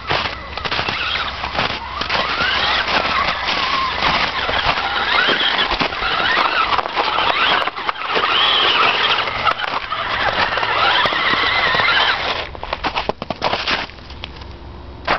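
Axial Wraith RC crawler's electric motor and gears whining, rising and falling in pitch as the throttle changes, with snow crackling under its tyres. The whine stops about twelve seconds in, leaving scattered crunches.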